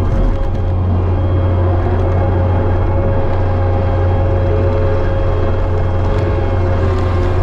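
Kubota SVL65-2 compact track loader's diesel engine running steadily at working speed while its hydraulic brush cutter mows tall grass, heard from inside the cab as a loud, even drone.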